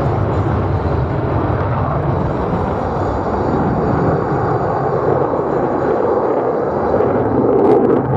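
Jet noise from an F-35A Lightning II's Pratt & Whitney F135 engine in flight: a steady, loud rumble that swells slightly near the end.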